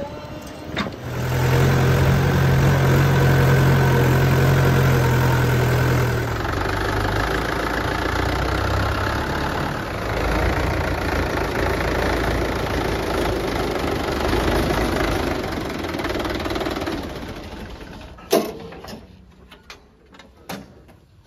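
Swaraj 843 XM tractor's three-cylinder diesel engine running steadily at idle, with a deeper, louder hum in the first few seconds. The engine fades out near the end and is followed by one sharp click and a few lighter clicks.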